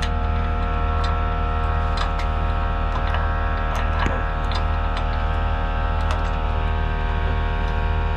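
Diesel pickup's Duramax engine idling with a steady hum, with scattered light ticks and clicks over it.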